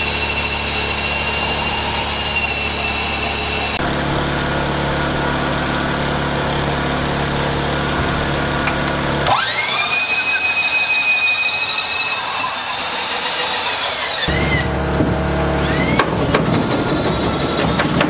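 Corded electric drill boring through wooden wall framing, running low and steady under load. About nine seconds in it spins up to a high whine, holds for about five seconds, then winds down, followed by a few short bursts.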